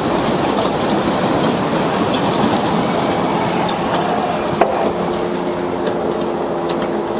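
Steady rumbling roar from a large explosion, with a single sharp crack about two-thirds of the way in and a faint steady hum after it.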